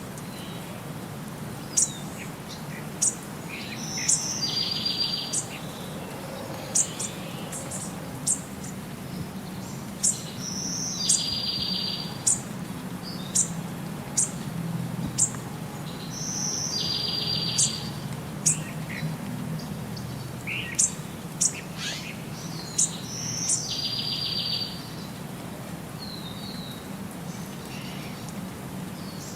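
Birds chirping: many sharp, high, quick chirps, with a short buzzy trilled phrase repeated about every six seconds, over a steady low background hum.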